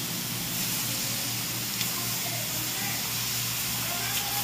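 Goat meat sizzling steadily in hot oil in a caldero, stirred with a metal spoon.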